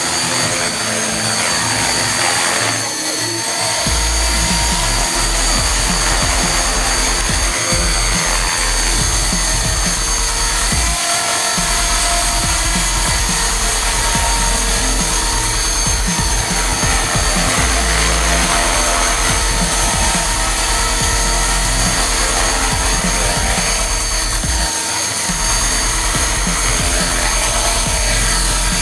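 Electric T-Rex 450-class RC helicopter hovering: a steady high-pitched whine from its motor and gears over the rushing of the rotor, with a low rumble coming and going from about four seconds in.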